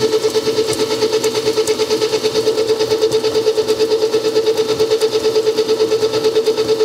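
Hobart N50 stand mixer running on speed 2 with its flat paddle creaming sugar for cookie dough. The motor and gear drive give a steady hum with a fast, even pulsing.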